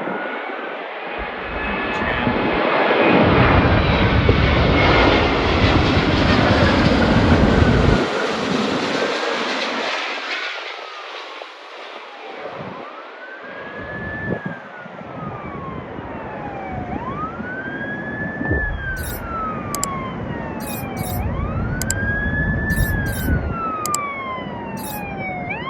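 Airbus A350 airliner passing low on its landing approach, its Rolls-Royce Trent XWB jet engines swelling to a loud roar and fading away over the first half. Then an emergency-vehicle siren wails, each cycle rising quickly and falling slowly, about four times.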